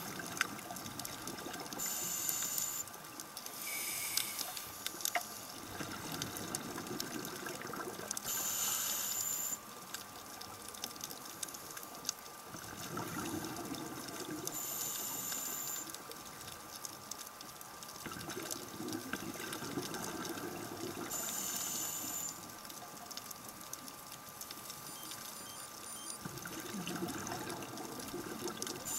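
Scuba breathing heard underwater through a regulator: a short hiss with a thin whistle at each inhalation, about every six to seven seconds. Between them comes a longer low bubbling rumble of exhaled bubbles.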